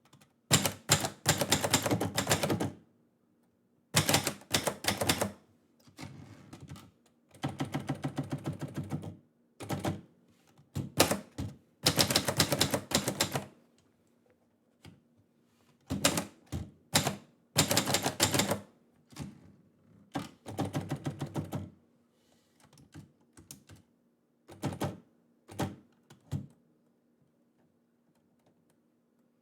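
Manual typewriter being typed on in bursts: runs of rapid key strikes lasting a second or two, broken by short pauses, with a few scattered single strikes in the second half.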